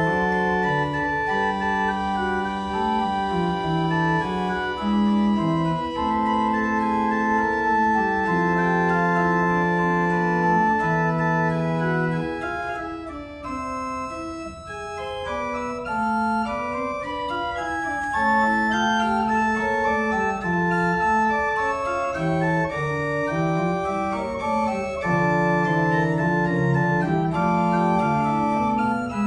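Berghaus pipe organ (Op. 72, 1988) playing sustained chords over a moving lower line. It goes softer and thinner about 13 seconds in, then builds back to full sound a couple of seconds later.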